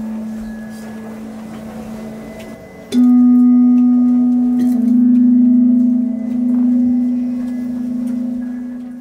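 Deep ringing tone of a struck metal instrument, fading, then struck again about three seconds in at a slightly higher pitch and left to ring out slowly, its ring wavering as it fades.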